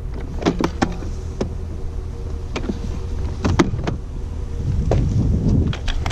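Wind rumbling on the microphone under a low steady drone, with scattered clicks and knocks of curbside junk being handled.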